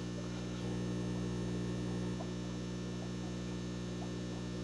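Steady low electrical hum from aquarium equipment, a drone of several even pitches with no words over it, and a few faint ticks along the way.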